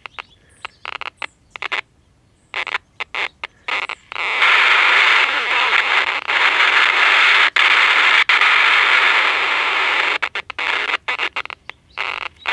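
Vintage AM pocket transistor radio crackling and cutting in and out in short irregular bursts. About four seconds in it breaks into a loud continuous rush of static with brief dropouts, then falls back to scattered crackles. This is the output of a set that is still faulty mid-repair.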